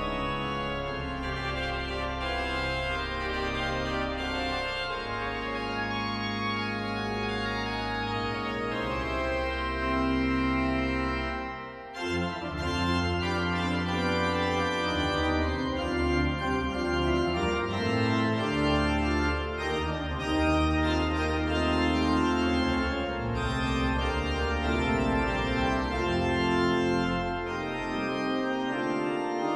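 Pipe organ playing a fanfare: held chords over deep pedal bass notes, with a brief break about twelve seconds in before the playing starts again.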